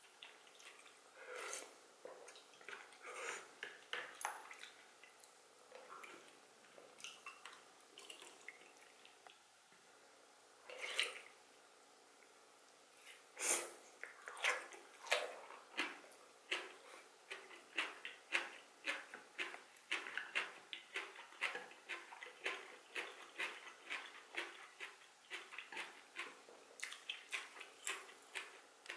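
Close-miked eating sounds: a few slurps and wet mouth clicks, then from about halfway on a mouthful of bean sprouts chewed steadily, with rapid wet clicks several times a second.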